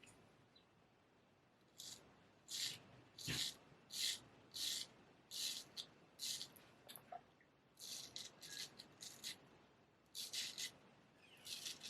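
Olympia straight razor, freshly honed on a Belgian Coticule and BBW stone, scraping through lathered stubble in short, separate strokes, roughly one or two a second, starting about two seconds in.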